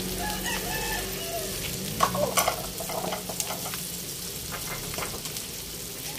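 Chicken skins deep-frying in hot oil: a steady bubbling sizzle with crackling pops, loudest in a cluster of pops about two seconds in.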